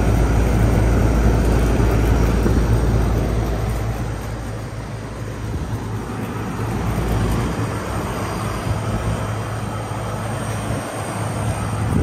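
Outdoor air-conditioner condensing unit running in cooling mode: the rush of air from its fan over a steady low hum, fading about four seconds in.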